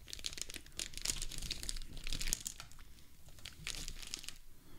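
Plastic candy pouch crinkling and tearing as it is handled and opened, a quick run of sharp crackles.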